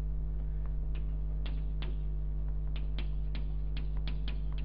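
Chalk clicking and scratching on a blackboard as words are written, a series of short sharp strokes starting about a second in, over a steady low electrical mains hum.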